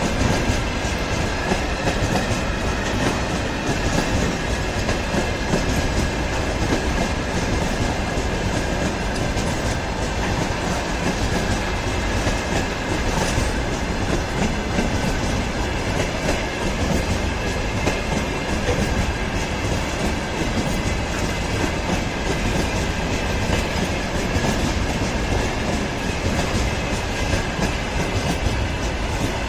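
Freight train rolling past at steady speed: wagon wheels rumbling and clattering over the rail joints, with a faint steady high ringing from the wheels and rails above the rumble.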